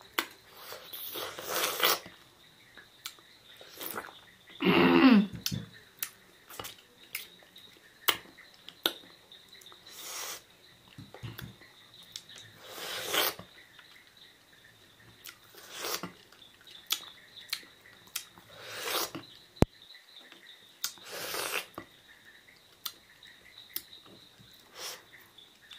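A person eating sohphie berries: irregular chewing, lip smacks and short breathy sounds, with a brief hummed vocal sound about five seconds in.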